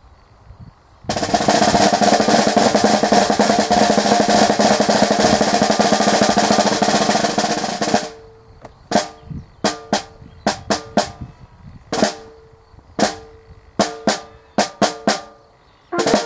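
Snare drum playing a ceremonial drum call: a long, loud roll, then a rhythmic series of sharp single strokes. A brass note begins right at the very end.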